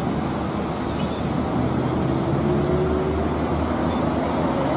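Coach bus's diesel engine running as the bus approaches on the road, under steady tyre and traffic noise.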